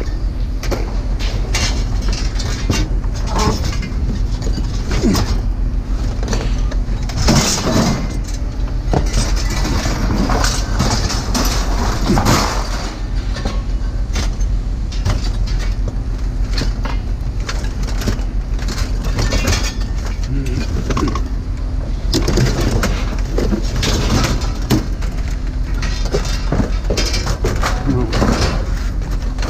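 Pieces of scrap metal clanking and clattering as they are handled and tossed, many irregular impacts, over the steady hum of an idling engine.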